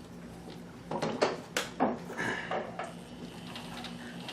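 Bernina 610 sewing machine sewing in reverse at slow speed: a steady, quiet motor hum with a run of sharp mechanical clicks and knocks partway through.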